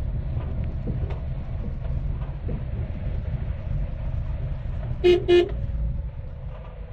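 Steady low rumble of a vehicle on the road, with two short toots of a vehicle horn a little after five seconds in.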